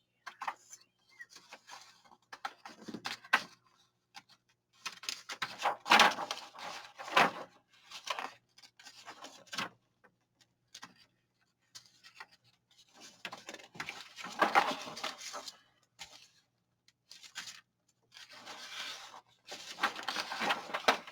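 Paper rustling and crinkling in irregular bursts as sheets of printed collage paper are handled and sorted, the loudest handling about six seconds in and again around fourteen seconds.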